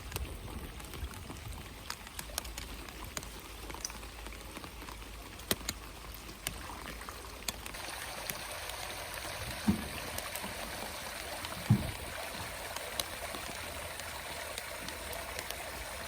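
Steady rain hiss and running water, with scattered sharp drop ticks; the hiss grows fuller about halfway through. Two short, dull knocks stand out, about two seconds apart.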